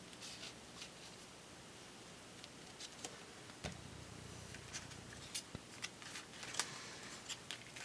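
Faint, scattered clicks and light taps of paper and die-cut pieces being handled on a craft table, with one soft thump about halfway through.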